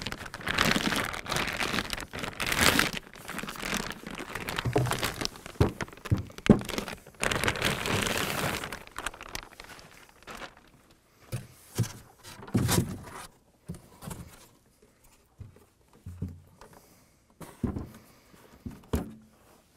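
Plastic bag rustling and crinkling as it is pulled off an Audio Precision APx517B rack-mount analyzer, then a series of separate thunks and knocks as the metal unit is handled and set down on a table.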